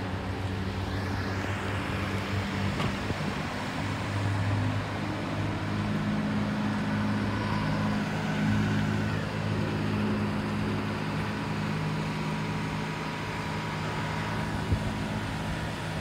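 A vehicle engine running at a steady idle over general traffic noise, with one sharp tick near the end.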